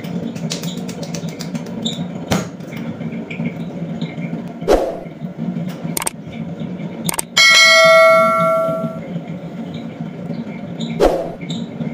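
Steady low hum of an electric potter's wheel turning, overlaid with a subscribe-button sound effect: several sharp clicks and, about seven seconds in, a loud bright bell ding that rings out for under two seconds.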